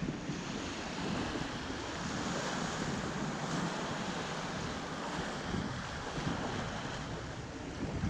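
Small waves of the Black Sea lapping and washing up a sandy beach in a steady wash of surf, with wind buffeting the microphone in low gusts.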